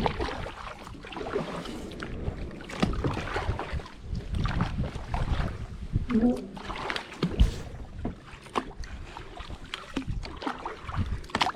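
A kayak being paddled and pushed along shallow water: irregular splashes and knocks from the paddle and hull.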